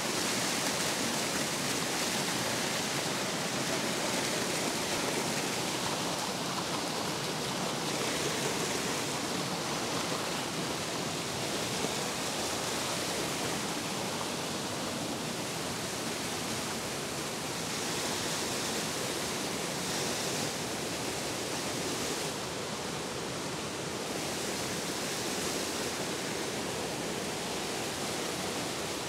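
Mountain stream rushing steadily as it cascades over rock slabs into pools.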